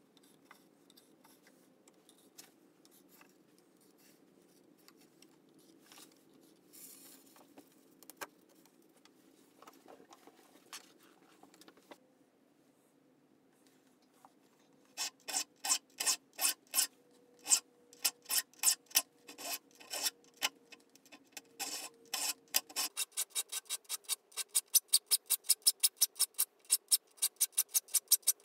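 Saw file rasping across the steel teeth of a Sandvik crosscut handsaw as the teeth are sharpened, in evenly spaced strokes. For the first half there are only faint scattered clicks; the file strokes begin about halfway in at roughly two a second and quicken to about three a second near the end.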